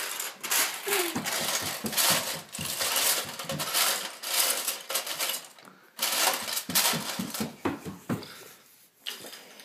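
Dense, irregular clattering and rustling, like quick small footsteps and handling noise, as a toddler runs about on a hardwood floor, with a few short child vocal sounds mixed in. It dips briefly near the middle and grows quieter near the end.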